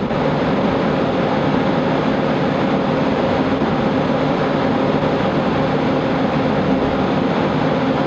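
Wind tunnel blower running for a high-wind shingle test: a loud, steady rush of air with a steady hum underneath.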